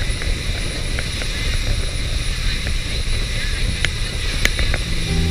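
Motorboat running at speed over open water: a low, rough rush of engine, hull and wind buffeting the microphone, with a few sharp ticks of spray hitting the camera.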